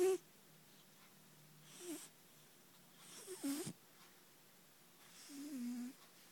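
A sleeping cat snoring: a short, pitched snore on each breath, recurring about every one and a half to two seconds.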